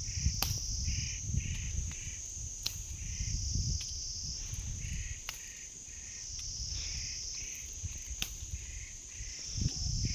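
Insects trilling steadily and high-pitched, with a lower chirping that pulses two or three times a second. A few sharp clicks stand out, plausibly marigold stems snapped off by hand.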